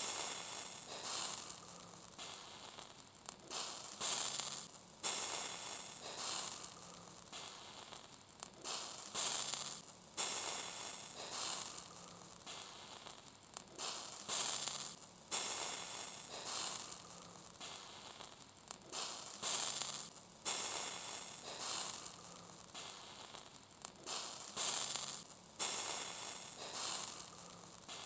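Fat dripping from grilling sausages onto the hot grill. Each drop flares into a sudden hiss that fades over about a second, repeating every second or so over a steady background sizzle.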